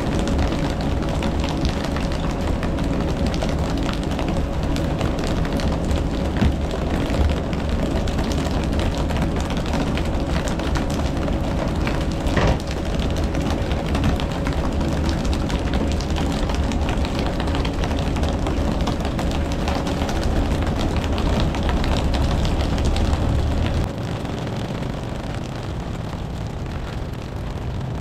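A boat engine running steadily under a wash of wind and water noise, with a strong low rumble. About four seconds before the end the low rumble drops away and the overall level falls.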